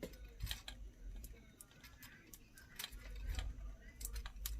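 Plastic clicks and snaps from a Transformers action figure being handled and converted, its joints and panels clicking into place. The clicks are scattered, a few near the start and a cluster near the end.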